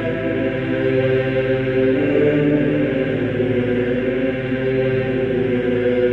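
Background music of chanting voices holding long sustained notes, moving to new notes about two seconds in.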